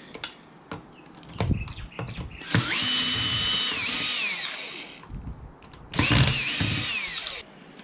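Power drill-driver backing out screws from an aluminium housing cover: two short runs, each spinning up, holding steady and winding down, after a few light clicks and knocks of handling.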